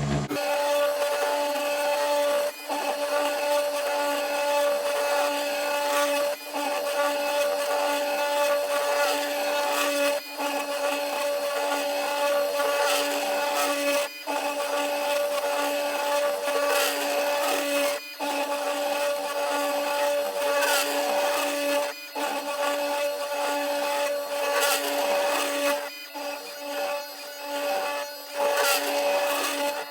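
CNC 3018 Pro desktop router milling aluminium: the spindle runs with a steady whine while the end mill chatters and scrapes through the metal. The cutting noise drops out briefly about every four seconds.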